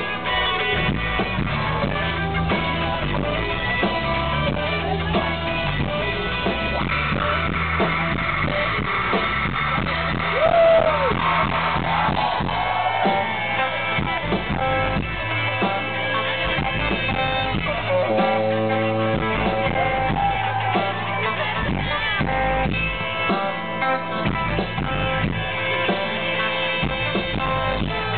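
Live blues-rock band playing through a festival PA: electric guitar with bent, gliding notes over drums and bass. The bass drops out for a few seconds at a time in the middle.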